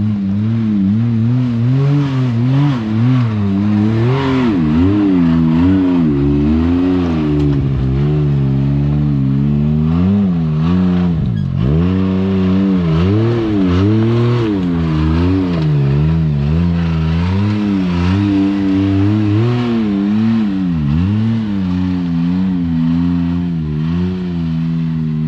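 Side-by-side UTV engine revving up and down over and over in short throttle blips, working up a rocky ledge climb.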